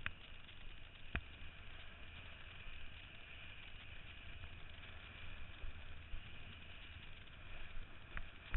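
Kiteboard skimming over choppy sea water: a steady rush and hiss of water and spray, with wind buffeting the microphone as a low rumble. A few sharp clicks or knocks, one about a second in and two near the end.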